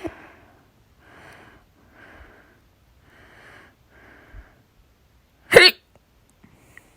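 A woman hiccupping: a soft hiccup at the start runs into an exhale, and four quiet breaths follow about a second apart. Then comes one loud, sharp hiccup with a pitched vocal 'hic', about five and a half seconds in.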